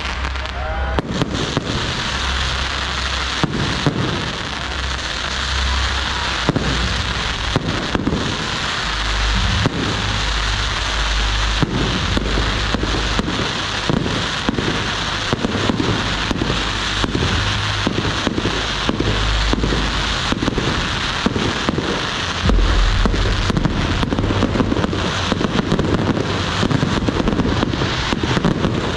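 Fireworks display: a rapid, irregular string of sharp bangs and pops over a continuous crackling hiss, with deep low booms in stretches.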